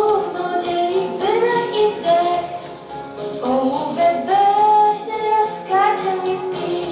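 A young girl singing a pop song into a handheld microphone, amplified through the hall's PA, over a steady instrumental backing track.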